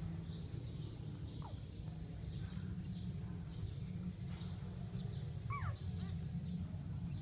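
Two-day-old Siberian husky puppies giving a few short, thin squeaks that fall in pitch, the clearest a little past halfway, over a steady low rumble.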